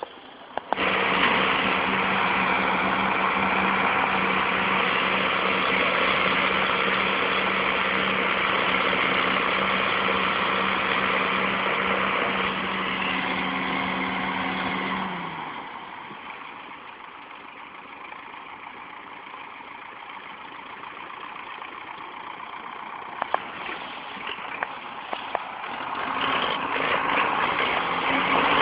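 Belarus tractor's diesel engine running hard while hauling a heavy trailer load. It holds a steady note for about fifteen seconds, then falls away much quieter and rises again near the end.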